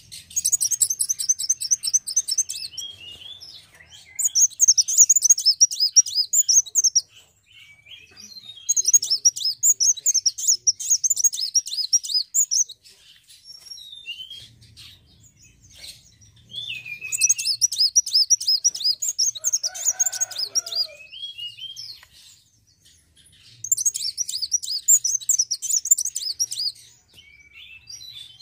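Sunbird song: five bouts of rapid, high twittering, each a few seconds long, with scattered single chirps between them.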